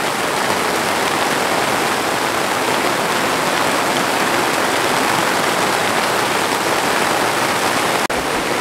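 Heavy rain pouring steadily onto trees and grass, a dense, even hiss. It drops out for an instant near the end.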